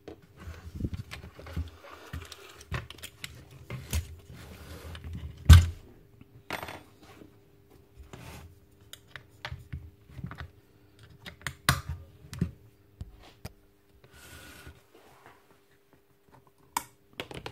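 Metal and plastic parts of a cordless nail gun being handled and dismantled on a workbench: irregular clicks, scrapes and knocks as the aluminium air cylinder is separated from the housing and worked on with a spanner, with one sharp knock about five and a half seconds in.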